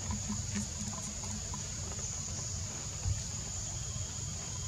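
Outdoor ambience: a steady high-pitched insect drone over a continuous low rumble, with a few faint ticks and a soft thump about three seconds in.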